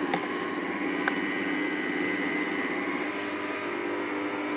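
Bosch electric kitchen machine with a meat-mincer attachment running steadily as raw pike is pushed through it, its motor giving a steady whine, with a couple of light clicks.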